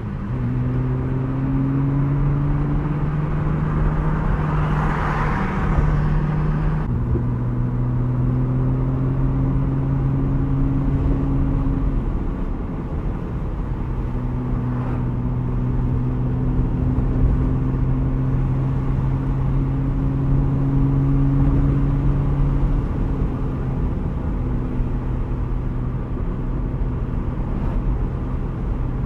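Lamborghini Murcielago V12 engine running steadily under way, a low drone whose pitch drops a step just after the start and again about seven seconds in.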